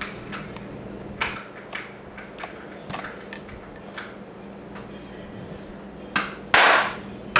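Handling of an unused coffee creamer container: scattered light clicks and taps, then two short, louder rushing noises about six seconds in.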